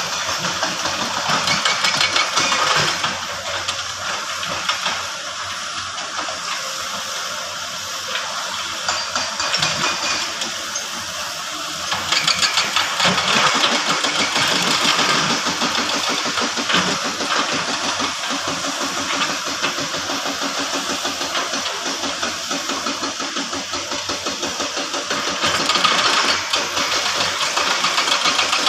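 Heavy construction vehicle's diesel engine running, with a fast, rough pulsing beat. It gets louder about twelve seconds in and again near the end.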